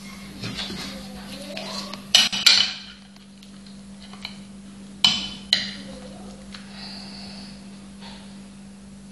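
Metal utensil clinking against a dish: four sharp, ringing clinks in two quick pairs, about two and five seconds in, over a steady low hum.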